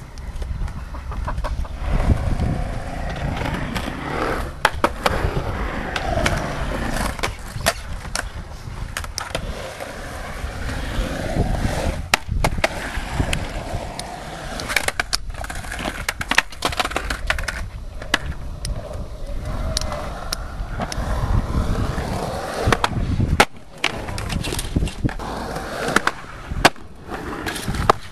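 Skateboard wheels rolling over concrete with a continuous rumble, broken many times by sharp clacks and knocks of boards striking the ground and ledges.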